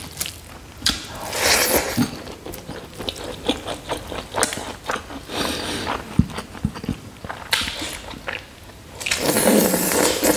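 Close-up eating by hand: fingers mixing and scooping rice soaked in pork curry gravy on a plate, with chewing and many small wet clicks. A mouthful of rice is pushed into the mouth near the end, and this is the loudest part.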